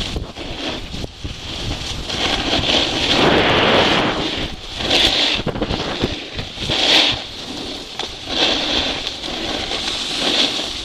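Snowboard edges scraping and hissing over hard-packed snow on a downhill run, swelling and fading every second or two with the turns, mixed with wind rushing on the microphone.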